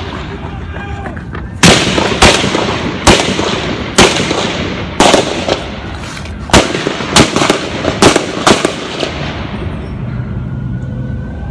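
Gunshots in an exchange of fire, about a dozen sharp cracks at uneven spacing over some seven seconds, each with a short echo, stopping about a second and a half before the end.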